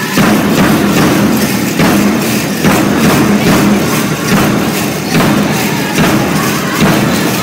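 Powwow drum group striking a big bass drum in a steady, even beat, with singers' voices held over it: a grand entry song.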